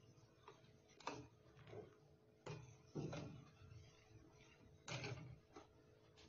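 Steel spoon clinking and scraping against a steel pan of milk as it is stirred: about seven faint clicks, roughly one a second, over a faint steady hum.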